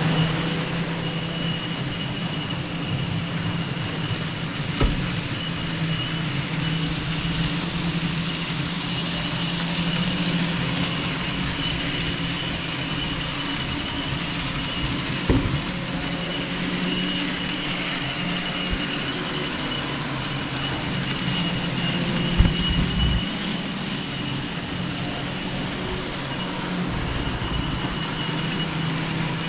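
Model train locomotives running around a model railway layout: a steady electric-motor hum with track noise, broken by three sharp clicks.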